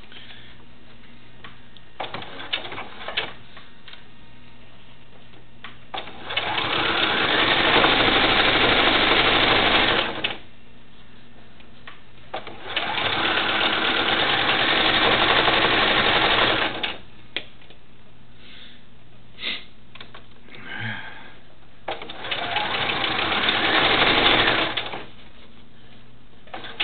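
Electric sewing machine stitching an invisible zipper in three runs of a few seconds each, its motor speeding up at the start of every run. Small clicks and knocks of the fabric being handled come in the pauses between runs.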